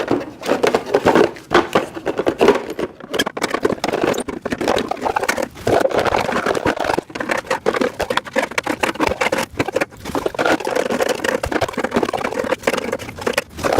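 Storage rack parts handled during assembly: a dense run of quick clatters, knocks and scrapes with no pause.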